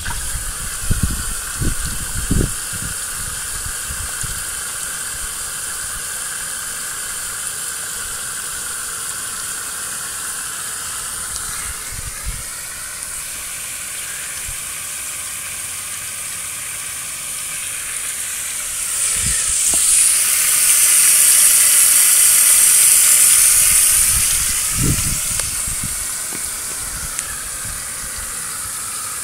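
Steady hiss and splatter of water spray from a small homemade floating pond aerator fountain, driven by a salvaged hair-dryer fan motor. It grows louder and brighter for several seconds past the middle before settling back, with a few dull thumps near the start and later on.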